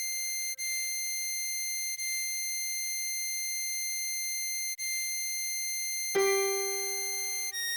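A 10-hole diatonic harmonica melody played slowly, with clean, steady tones. One high note is sounded again and again for the first six seconds, then a louder, lower note comes in, and the pitch changes once more near the end.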